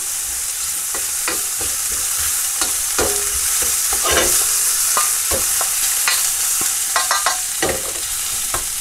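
Sliced onions and mushrooms sizzling in oil in a stainless steel frying pan. From about a second in, a spatula stirs them, with irregular scrapes and clicks against the pan.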